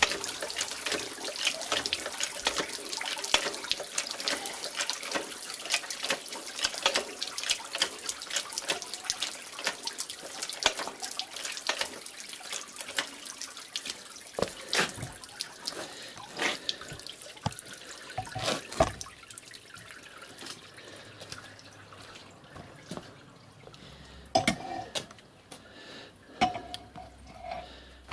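Water streaming and dripping out of wet paper pulp in a hand-lever briquette press, a dense crackling trickle that thins out over about twenty seconds. A few sharper knocks follow near the end.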